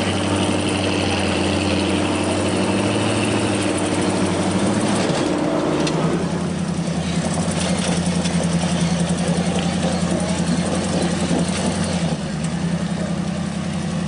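Rock-crawling 4x4 truck's engine running at low, steady revs while it crawls a rock ledge. The engine note changes about six seconds in and again about twelve seconds in.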